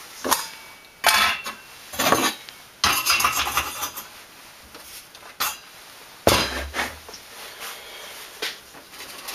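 Metal stove parts clattering as they are handled and set down: a string of sharp knocks and rattles, loudest about a second, three seconds and six seconds in.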